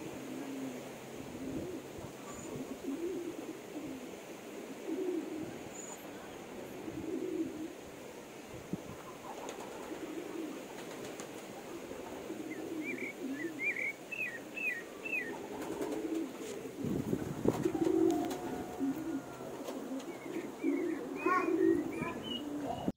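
Birds calling: a low, soft call repeating every two or three seconds, with short runs of high chirps from a small bird about halfway through and again near the end. A low rumble comes in about seventeen seconds in.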